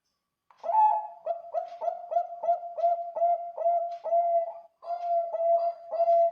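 Zebra dove (Bangkok-bred perkutut) singing: a fast run of short coos on one steady pitch, about three a second, starting about half a second in with a brief pause near the middle.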